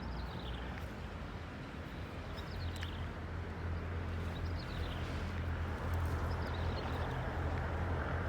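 Outdoor ambience: a steady low rumble that grows slightly louder, with a bird repeating a short, quickly falling run of high notes every couple of seconds.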